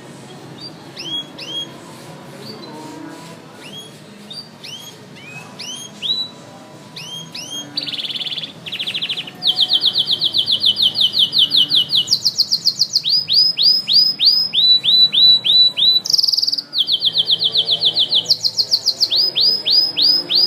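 Canary singing: at first scattered short chirps, then from about eight seconds in a loud, continuous song of very fast trills, each run of repeated notes switching to a new pitch every second or two.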